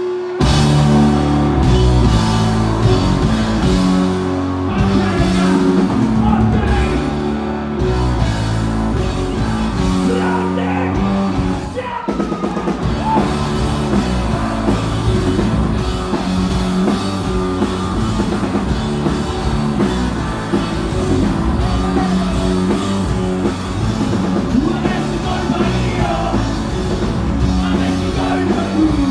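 Rock band playing live at full volume: electric guitars, bass and drum kit crash in together just after the start, with singing over them. There is a brief break about twelve seconds in, then the full band carries on.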